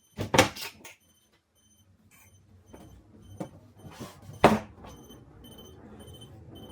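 Electronic alarm clock beeping in short, evenly repeated high pips, broken by two loud knocks, one just after the start and one about four and a half seconds in.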